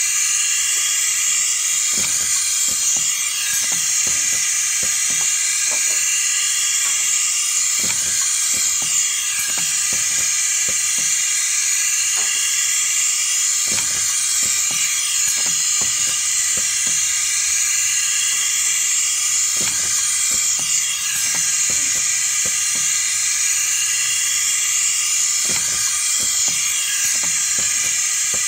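Pad printing machine cycling on a cosmetic jar. It gives a steady hiss with a pair of light clicks about every six seconds as the pad presses down and lifts.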